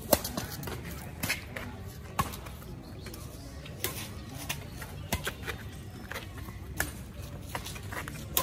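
Badminton rackets striking a shuttlecock during a doubles rally: a string of sharp pops, about one a second.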